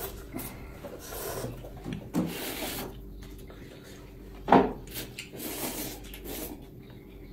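People slurping instant noodles with chopsticks: several noisy slurps, the loudest a short, sharp one about halfway through.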